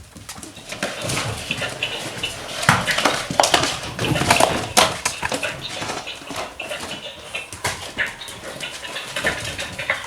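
Golden retriever puppies making short whining and yipping sounds amid a busy run of knocks and clicks, busiest a few seconds in.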